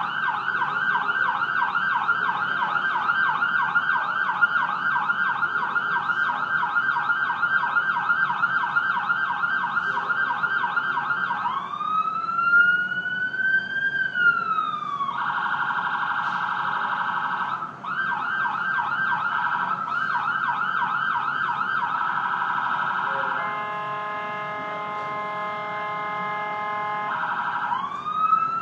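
Ambulance sirens switching between patterns: a rapid yelp for about the first eleven seconds, then a slow rising-and-falling wail, a fast warble, the yelp again, a steady chord-like horn tone, and near the end the wail rising once more.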